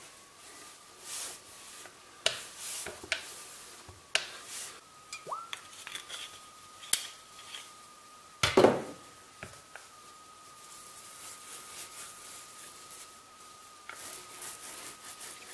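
Rolling pin working a sheet of dough on a cloth towel: scattered soft knocks and rustles as it rolls and is handled, with one louder thump about eight and a half seconds in. A faint steady high tone runs underneath.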